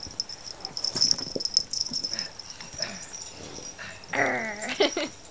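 Yorkshire terrier playing rough with a partially deflated basketball, mouthing and batting it, with scattered knocks and rustles. About four seconds in the dog gives a brief, falling whine.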